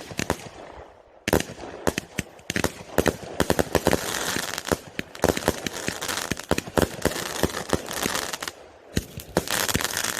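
Crackling fireworks: a rapid, irregular run of sharp pops and cracks, with brief lulls about a second in and again near nine seconds.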